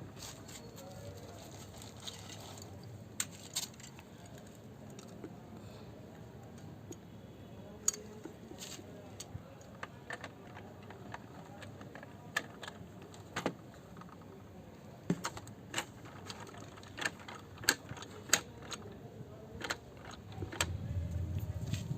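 Small plastic toy race-track pieces being handled, with irregular sharp clicks and clacks scattered through. A low hum comes in near the end.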